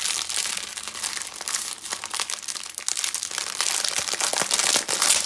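Clear plastic packaging crinkling and crackling as hands handle and pull at it, louder near the end.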